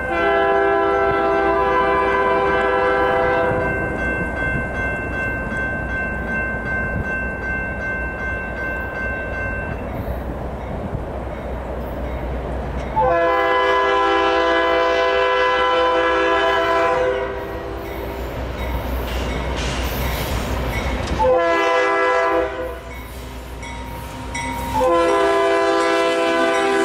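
RS3K air horn on CSX locomotive 559 sounding two long blasts, a short one and a long one, the grade-crossing signal. The low rumble of the passing train fills the gaps, and a thinner tone lingers for several seconds after the first blast.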